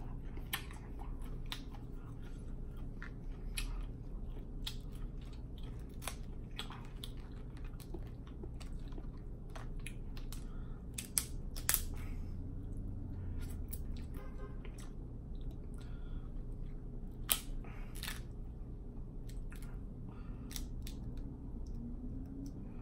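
Snow crab leg shells being cracked and snapped apart by hand, with close-miked chewing: scattered clicks and crackles, and a few sharper cracks about halfway through and again about three-quarters through.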